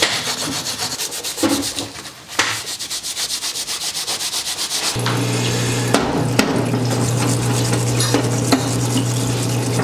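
A brush scrubbing caked-on carbon off an engine piston in rapid, even strokes. About five seconds in, the parts washer's pump switches on with a steady hum, and solvent splashes over the piston.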